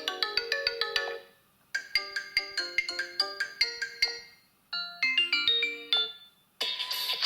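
Stock ringtones of a Xiaomi Redmi A5 smartphone, played one after another: short melodies of quick, bright ringing notes, each a second or two long with brief silent gaps between them. Near the end a denser, busier tone begins.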